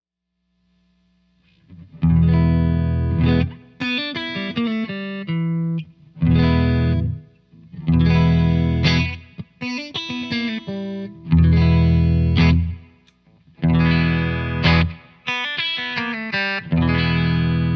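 Electric guitar played through a Joyo R-02 Taichi overdrive pedal, a Dumble-style Zendrive clone. It comes in after about a second and a half of silence, then plays overdriven chords and riffs in short phrases with brief breaks between them.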